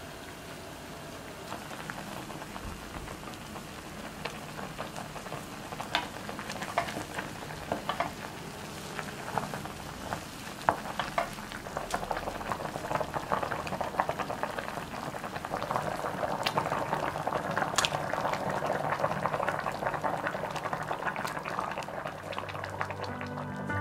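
Pot of beef broth with onion, green onion and shiitake mushrooms at a rolling boil, bubbling with many small popping crackles. The bubbling grows denser and louder a little over halfway through.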